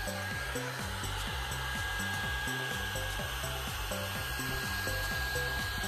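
Hot-air blow-dryer brush (CREATE ION Holistic Cure) blowing steadily, with a constant high motor whine, as it is run through the hair at the roots to dry it for lift. Background music with a bass line plays underneath.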